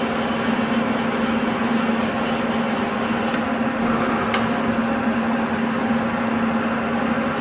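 Geared engine lathe running steadily: a constant mechanical hum with a drone of several steady tones, and two faint ticks about three and a half and four and a half seconds in.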